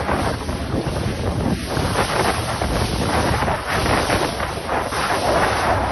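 Strong wind buffeting the microphone over the rush and splash of choppy water, steady and gusty throughout.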